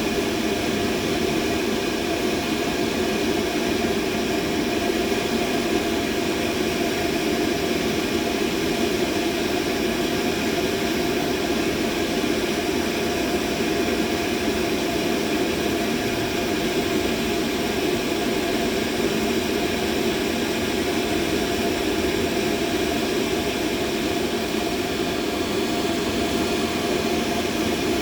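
Steady mid-pitched machine noise: an even, unchanging whir, strongest in the low-middle range, with a few faint steady tones above it.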